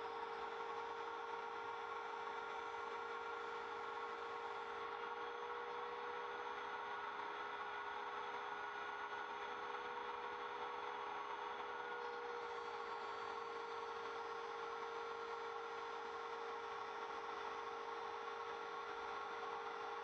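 Router spindle on an MPCNC Primo CNC machine running at speed while a 1/8-inch single-flute end mill cuts slowly through plywood: a steady, even whine.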